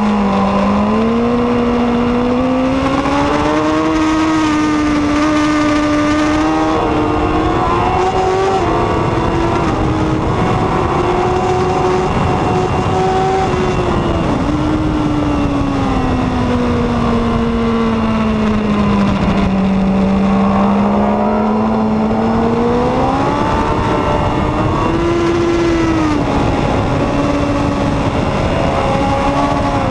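2014 Honda CBR1000RR SP's inline-four engine at racing revs, its pitch climbing through the gears and dropping on downshifts as the bike is ridden hard around a race track. The pitch sinks in a long slow fall about two-thirds of the way through, then climbs again, over a steady rushing noise.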